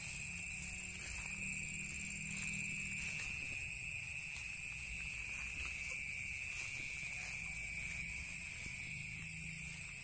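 Steady, high chirring chorus of night insects, with a low rumble and faint rustles from people walking and handling the camera.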